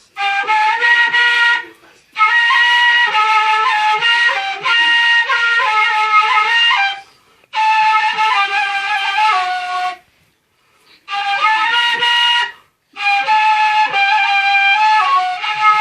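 Kaval, the end-blown Turkish shepherd's flute, playing a folk melody in phrases of two to three seconds, with short breaks for breath about two seconds in, about seven seconds in and a longer one around ten seconds in.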